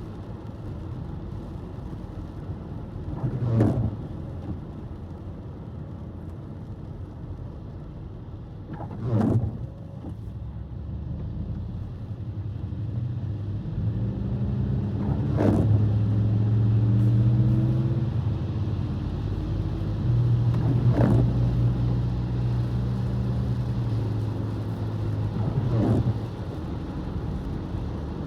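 Car driving on a wet, snowy road: steady low road and engine noise that swells in the second half. A short swish comes about every five and a half seconds, five times, like intermittent windshield wipers sweeping the glass.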